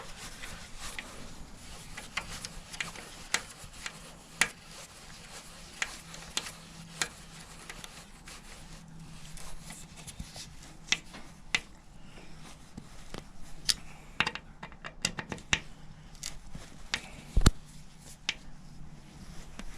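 Small hand tool clicking and scraping against metal parts as the screws of motorcycle chain adjusters are tightened, in irregular ticks, with one louder knock near the end. A low steady hum runs underneath.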